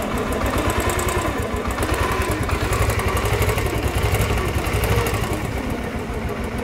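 Royal Enfield Classic 350's single-cylinder air-cooled engine idling steadily, its rocker play freshly set. There is no tappet or rocker clatter: running smoothly and freely, with no disturbing noise.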